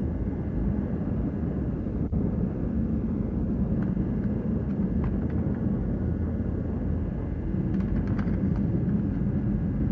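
Steady low rumble and hum under a layer of hiss, with a few faint clicks.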